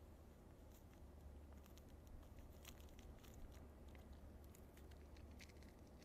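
Faint crinkling and ticking of a paper instant-coffee sachet being handled and emptied into a metal cup, a string of small irregular clicks over a low steady hum.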